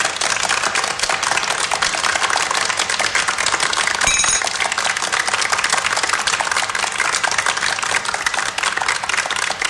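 Applause: many hands clapping densely and steadily, with a short high ringing tone about four seconds in.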